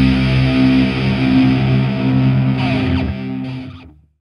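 Soundtrack music with distorted electric guitar holding sustained chords. A downward slide comes about three seconds in, then the music dies away and ends about four seconds in.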